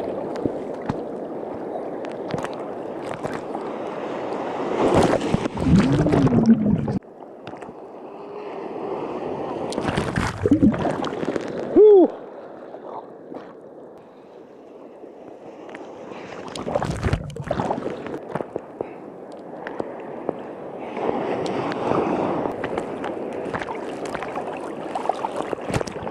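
Churning water and surf heard from a camera in the sea, with gurgling and sloshing as waves wash over it; the sound changes abruptly about seven seconds in and again near the end.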